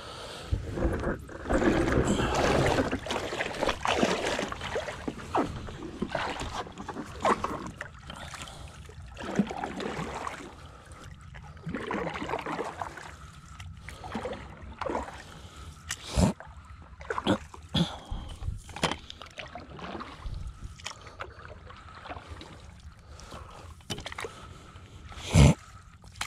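Stand-up paddleboard paddle strokes in calm lake water: the blade dipping and pulling with splashes, sloshing and drips, a stroke about every second, with denser sloshing in the first few seconds. A few sharp knocks stand out, the loudest near the end.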